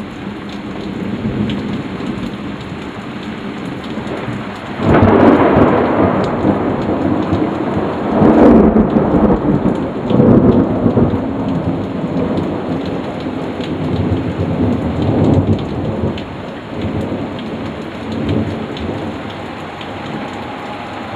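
Thunderstorm: steady rain, with a sudden loud thunderclap about five seconds in. The thunder rolls on in several rumbling swells for about ten seconds, then fades back to the rain alone.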